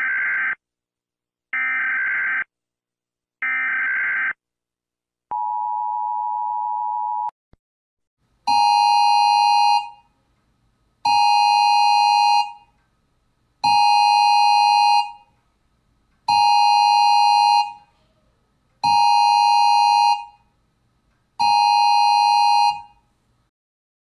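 Emergency Alert System broadcast tones. There are three short data bursts of the alert header about two seconds apart, then a steady two-tone attention beep lasting about two seconds, then six long, loud electronic alert tones repeating about every two and a half seconds.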